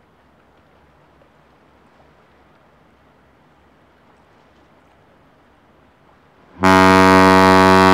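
Faint low rumble, then about two-thirds of the way in the lake freighter Philip R. Clarke's ship's horn starts a long, loud, deep blast with many overtones, held on. It is her fog signal, sounded at regular intervals to warn other vessels of her presence in thick fog.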